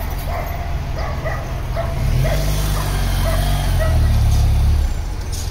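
A motorcycle engine runs close by and grows louder, loudest for about a second near the end before it drops back. Short high-pitched cries repeat over it about twice a second.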